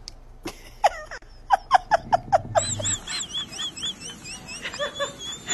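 Someone laughing in a quick run of short bursts, followed by a high, wavering, warbling whistle-like tone.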